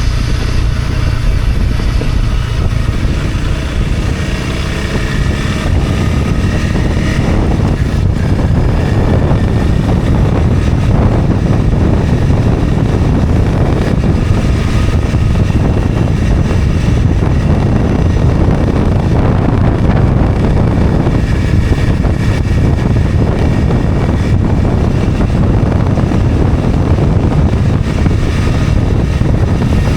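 Honda CRF250 Rally's single-cylinder four-stroke engine running while riding on a dirt mountain road, with heavy wind rumble on the microphone over it.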